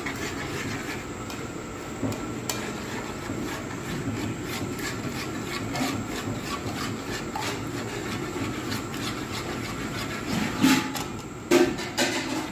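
Metal spoon stirring egg and condensed milk mixture in a metal pot, scraping steadily against the bottom and sides, with a few louder clinks near the end.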